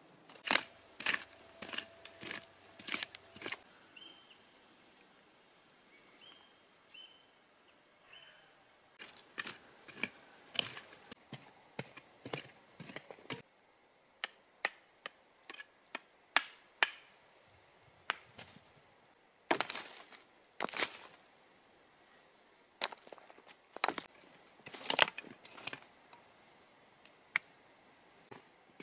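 A mattock chopping and scraping into stony clay soil while a pit is dug by hand. The strikes are sharp and come in clusters of several, with short pauses between them.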